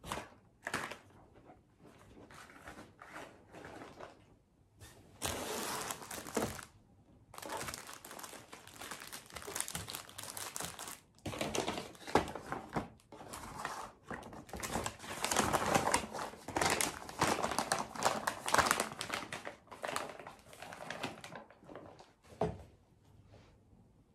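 Rustling of a canvas tote bag and crinkling of its contents as they are pulled out and handled, with a single sharp knock about halfway through; the rustling is loudest in the second half.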